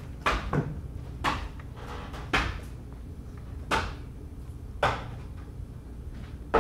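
Slow footsteps on wooden stage boards, about one step a second, each a sharp hollow knock.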